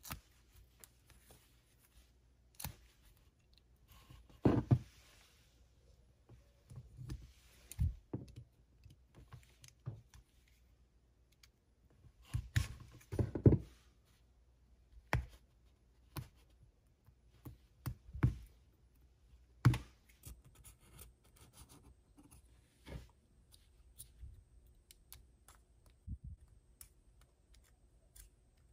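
Workpro utility knife cutting through material in short scraping bursts, between sharp knocks and clicks as the knife and material are handled.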